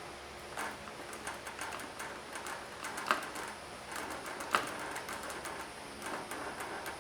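Vacuum oil extractor hose drawing the last of the old oil, mixed with air, out of a small mower engine's sump: an irregular crackle of small clicks and slurps, with two louder clicks about three and four and a half seconds in.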